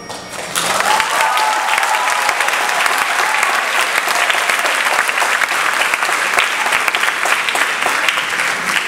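Theatre audience applauding, with a few cheers, breaking out about half a second in as the dance music stops.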